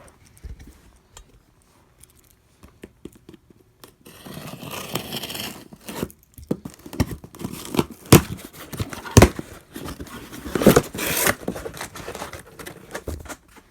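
A Swiss Army knife cutting open a shipping package. Faint small clicks at first, then, about four seconds in, scraping and tearing as the packaging is slit and pulled open, with crinkling and several sharp clicks and knocks.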